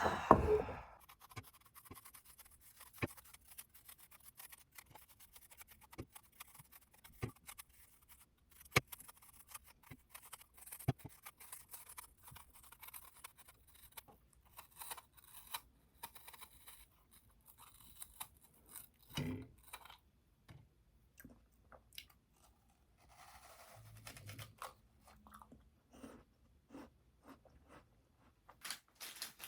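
Scattered small clicks, taps and scrapes of close handling, irregular throughout, with a louder knock at the start and another about two-thirds of the way through.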